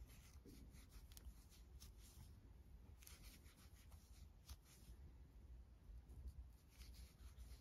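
Near silence with faint soft rubbing and light ticks of a 4 mm metal crochet hook working single crochets in aran yarn.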